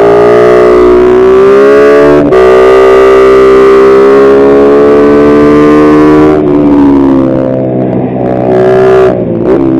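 Kayo MR150 pit bike's four-stroke single-cylinder engine pulling hard under acceleration, with a quick upshift about two seconds in that briefly cuts the sound and drops the pitch before it climbs again. About six seconds in the throttle closes and the pitch falls, then two short throttle blips near the end for clutchless downshifts.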